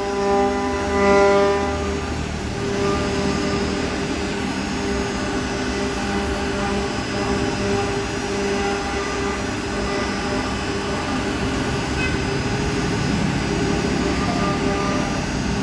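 Single-head CNC router running: a steady machine whine with several held tones over a rougher cutting noise.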